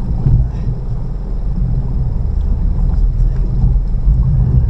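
An electrofishing boat's motor running with a steady low drone.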